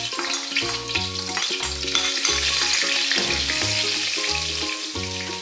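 Chopped garlic sizzling in hot cooking oil in a wok, mixed with background music that has a steady, repeating bass line.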